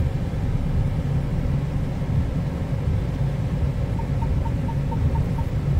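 A truck's engine idling, heard from inside the cab as a steady low rumble. Near the end a short run of faint, quick beeps, about five a second, sounds for just over a second.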